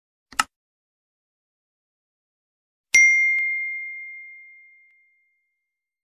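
A short click, then about three seconds in a single bell ding that rings out and fades over about two seconds: the sound effects of a subscribe-button click and notification-bell animation.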